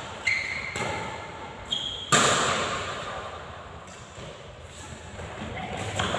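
Badminton rally: sharp racket strikes on the shuttlecock ring out around the hall, the loudest about two seconds in. Brief squeaks of shoes on the court floor come between them.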